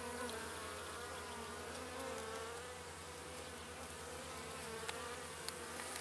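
Many honey bees buzzing over an open hive and a frame of comb: a steady hum of several overlapping tones whose pitch wavers.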